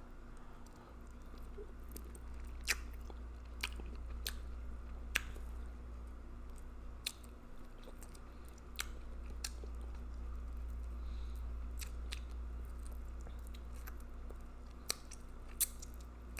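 Close-up chewing and wet lip smacking of a person eating a saucy seafood boil, with sharp mouth clicks every second or so.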